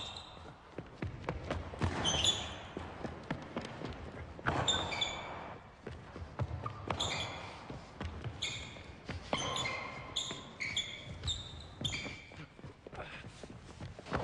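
A basketball bouncing on a hardwood gym floor, with repeated short, high sneaker squeaks as players run and pivot on the court.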